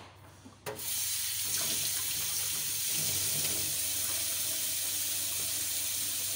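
Kitchen tap turned on under a second in, water running steadily into a sink.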